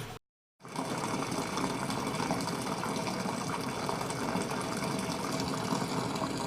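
Water running steadily into the tub of a ZENSTYLE mini washing machine as it fills, after a brief cut-out of the sound near the start.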